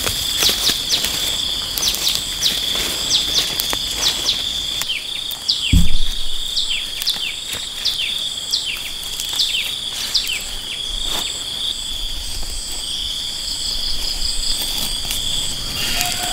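Steady high-pitched insect chorus with many short falling chirps from a bird, two or three a second. A single low thump about six seconds in.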